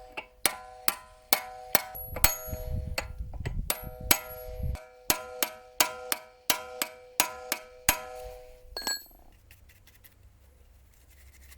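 Quick, even metal-on-metal taps on the excavator's steel pivot fitting, about two to three a second, each one ringing briefly. The taps stop about eight seconds in, followed by one sharper click shortly after.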